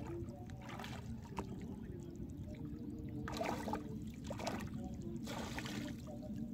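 Shallow water sloshing around a person's legs as they wade through it and reach in by hand after a fish, with two louder swishes in the second half.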